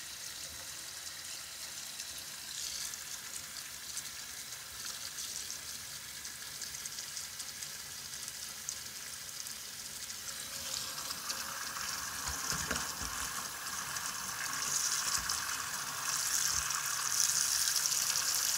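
Tap water running into a stainless steel kitchen sink and splashing against a steel pot: a steady hiss that grows louder about eleven seconds in and again near the end.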